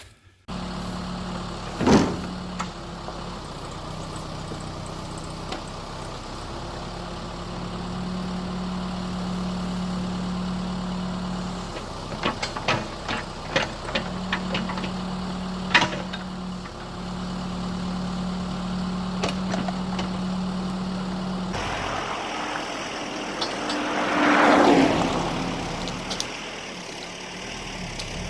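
An engine running at idle, with several sharp knocks or clanks in the middle stretch. Near the end comes a louder rushing surge.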